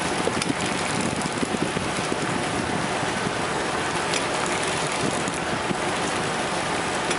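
Steady rushing noise aboard a fishing boat at sea: wind on the microphone over the boat's running engine.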